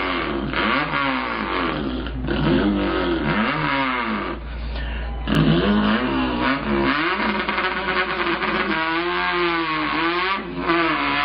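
A man imitating a tuned import car's engine with his voice: pitch climbs and falls back repeatedly, like revving up through the gears. There is a brief break about five seconds in, then a steadier held drone near the end.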